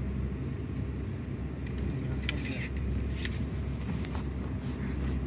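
Short, irregular clicks and creaks from a fishing rod and reel being worked while the line is snagged, over a steady low hum.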